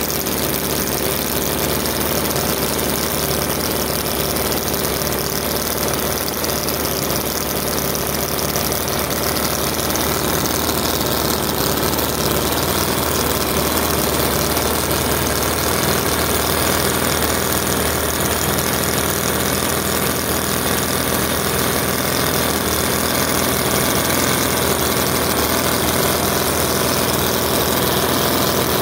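Miniature PeeWee V4 model engine, a water-cooled, spark-ignited four-cylinder, running steadily at an even speed.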